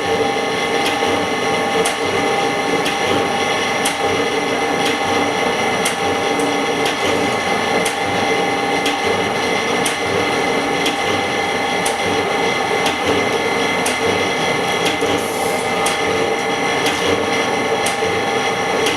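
Screen-repair LCD separator machine running steadily: a constant hum with several fixed tones, marked by light clicks every second or so.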